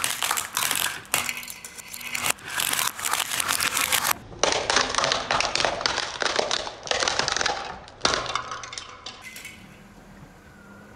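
Car tyre rolling over a row of brittle plastic plates, cracking and crunching them, with shards snapping and clinking. The crunching comes in several long stretches and stops about nine seconds in.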